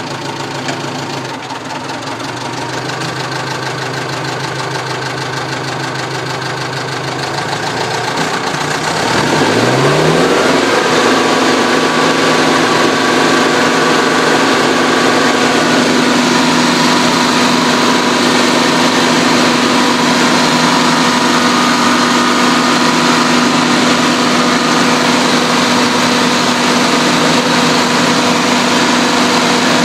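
1998 Carlton 3500 stump grinder's freshly rebuilt engine running steadily, then revving up about nine seconds in and holding at a higher, louder speed.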